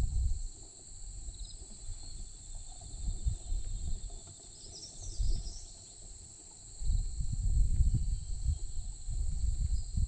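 A steady high insect drone with a few faint distant bird chirps, broken by low rumbling at the microphone: briefly at the start, once around the middle, and strongest over the last three seconds.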